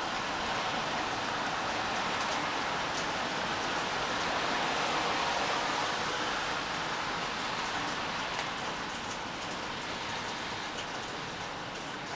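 Steady rain falling, an even hiss with a few faint drop ticks, easing slightly in the second half.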